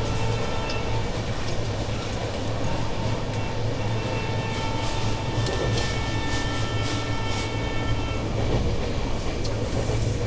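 Shatabdi Express passenger train running at speed, heard from on board: a steady rumble with faint, steady whining tones. For a few seconds midway, wheels click sharply over rail joints about twice a second.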